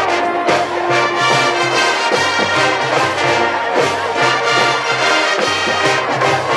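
High school marching band playing a brass-led rock arrangement, trumpets and trombones over low brass, steady and loud.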